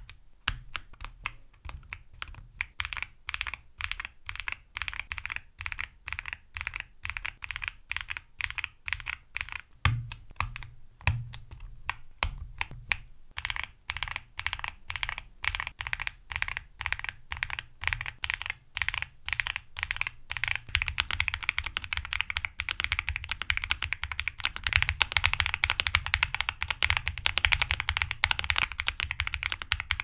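Typing on an Akko SPR67 mechanical keyboard (aluminium spring-mount case, FR4 plate, GMK keycaps) fitted with Akko V3 Cream Blue tactile switches, then the Cream Blue Pro, then the Cream Blue again. Quick, irregular keystrokes with a few heavier thumps in the first half, coming faster and denser in the last third.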